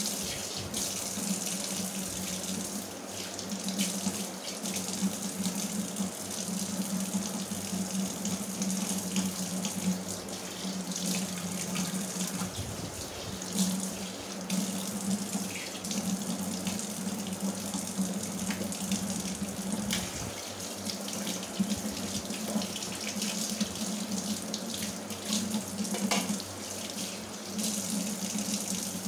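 Tap water running steadily into a stainless steel kitchen sink as the basin is rinsed and scrubbed by hand, with a few short knocks.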